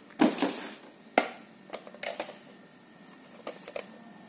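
A plastic CCTV camera being handled out of its cardboard packaging: a short brushing rustle at the start, a sharp plastic click about a second in, then a few lighter taps and knocks.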